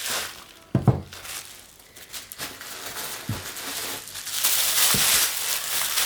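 Tarot deck boxes and their plastic packaging being handled: a few soft knocks of boxes being set down or bumped, then steady plastic crinkling from about four seconds in.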